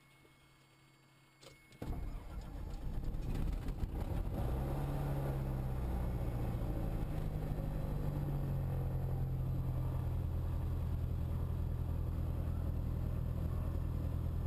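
Diamond trainer aircraft's piston engine starting: after a faint click, the engine cranks and catches about two seconds in, picks up over the next couple of seconds, and settles into a steady idle with the propeller turning.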